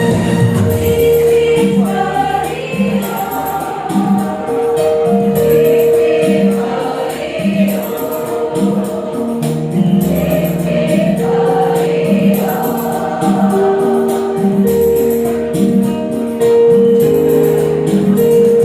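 Women's choir singing over instrumental accompaniment with held notes and a regular beat.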